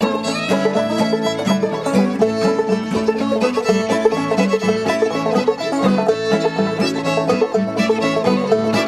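Instrumental music with a quick run of plucked string notes, playing steadily throughout.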